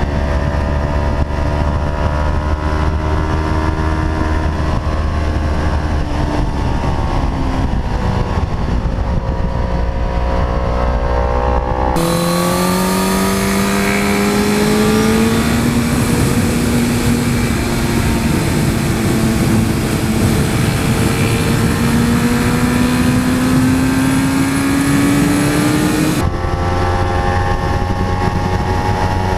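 Sport motorcycles heard from onboard cameras at riding speed: engine notes rising and falling with the throttle over steady wind noise. The sound changes abruptly about twelve seconds in and again near the end, as it switches between the two bikes, a Suzuki GSX-R 1000 and a Kawasaki Ninja 300.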